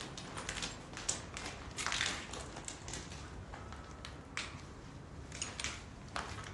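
Footsteps crunching and scuffing on a gritty, rubble-strewn stone floor: a dozen or so irregular short crunches and taps.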